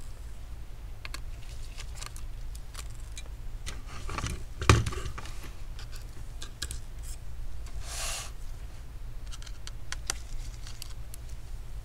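Small clicks and taps of hands working on a laptop's display assembly, taking out the LCD panel's screws and lifting the panel from its metal frame. One louder knock comes about halfway through, and a short scrape a few seconds later.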